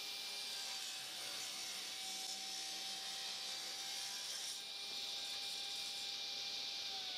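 Table saw running with its blade tilted to 45°, ripping a chamfer along the edge of a celery top pine board, a steady whine under the hiss of the cut. Near the end the saw is switched off and its pitch starts falling as the blade spins down.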